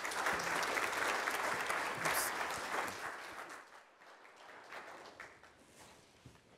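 Audience applauding a speaker's introduction, steady for about three seconds, then dying away by about four seconds in.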